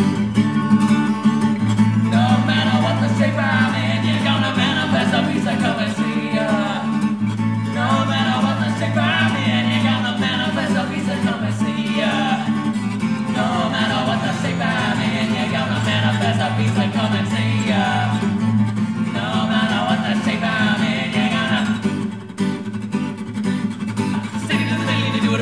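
A man singing along to his own strummed acoustic guitar. The voice stops about 22 seconds in, and the guitar carries on alone.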